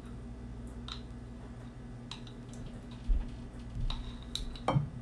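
Metal measuring spoon scraping and clicking against a mustard jar as mustard is scooped out: scattered light clicks and scrapes, the strongest shortly before the end.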